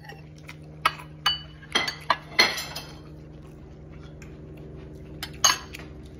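Dishes and utensils clinking against plates at a meal table: several sharp clinks in the first three seconds and another near the end. A steady low hum runs underneath.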